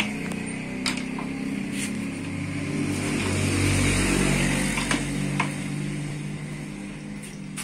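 A motorcycle engine running steadily, swelling a little about halfway through, with a few light metallic clicks from work on the steering stem.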